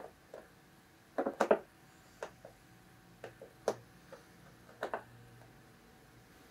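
Scattered short clicks and light scratches, some in quick clusters of two or three, from a cat batting and clawing at a piece of packing twine dragged over carpet.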